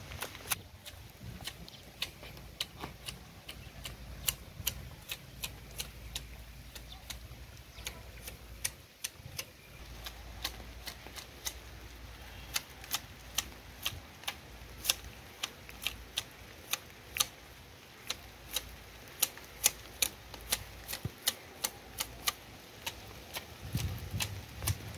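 Long-bladed hand hedge shears trimming the foliage of a ficus topiary, the metal blades closing in a steady run of sharp clicks, about one or two a second.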